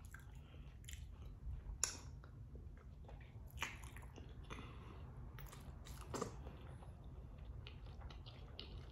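A person chewing and biting a boiled egg up close, with scattered short wet clicks and smacks of the mouth, over a faint steady low hum.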